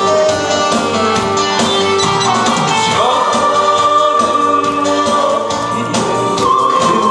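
Male singer singing a Korean trot song into a handheld microphone over a backing track with a steady drum beat, holding long notes in the second half.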